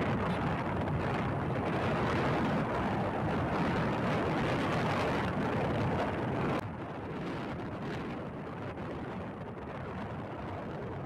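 Steady wind and road noise on a phone microphone riding on a moving motorbike, with no clear engine note; the noise drops suddenly to a lower level a little past halfway.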